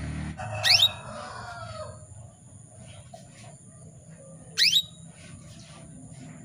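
Female canary calling: two loud, sharp upward-sweeping call notes about four seconds apart, with faint softer chirps between. These are the calls of a female in breeding condition, used to draw a male canary into song.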